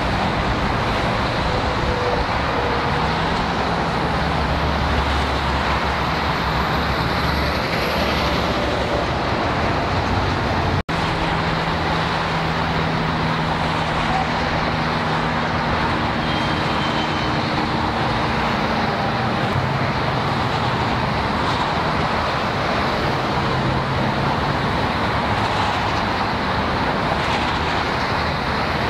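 Steady road traffic noise of cars and trucks running on a busy street, with a low engine hum that shifts as vehicles idle and move. The sound drops out for an instant about eleven seconds in.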